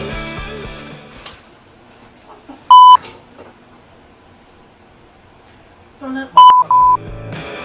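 Censor bleeps: one loud, steady bleep tone about three seconds in. Near the end, a brief bit of a man's voice is followed by two more bleeps, blanking out his swearing.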